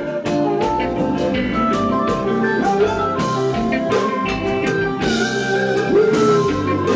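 Live kompa band music: electric guitar, keyboards and drum kit playing with a steady beat.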